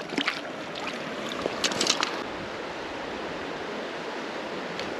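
Creek water flowing, a steady rushing hiss, with a few brief ticks in the first two seconds.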